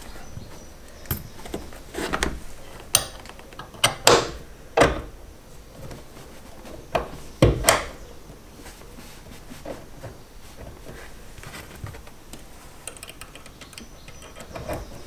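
Small metal clicks and knocks as a clevis pin is worked through the brake pedal and servo pushrod clevis: a cluster of sharp clicks in the first half, then quieter fiddling.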